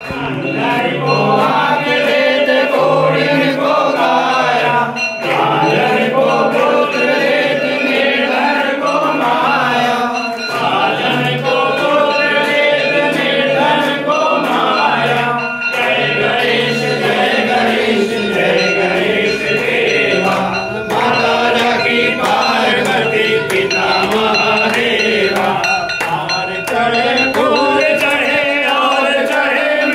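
A group of devotees singing a Hindu aarti hymn together, led by one male voice through a microphone, with rhythmic hand clapping keeping the beat.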